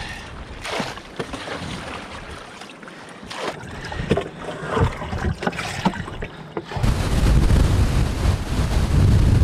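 Water being scooped from the floor of a canoe and tossed out with a cut-off plastic bottle bailer: a run of splashing scoops and pours. About seven seconds in it gives way abruptly to the loud, steady rush of a large rapid, with wind on the microphone.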